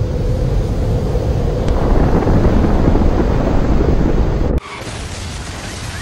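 Atomic-blast sound effect: a loud, deep, continuous rumbling roar that cuts off abruptly about four and a half seconds in, leaving a much quieter hiss.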